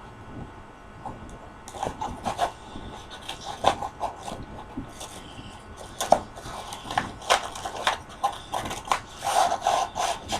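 Styrofoam packing and a cardboard box being worked open by hand and with a knife: irregular scraping, rubbing and scattered knocks, busier in the second half.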